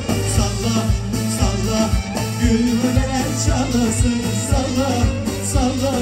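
Live Turkish pop band playing, with a steady drum beat and singing over it.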